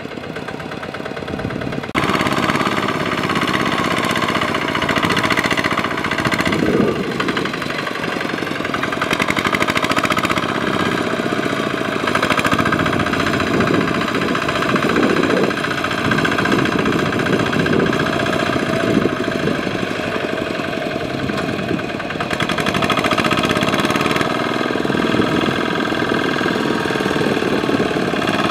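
Kubota RT120 walking tractor's single-cylinder diesel engine running under load as it hauls a loaded rice trailer through mud. It gets louder about two seconds in as it is opened up, and its pitch then rises and falls with the throttle.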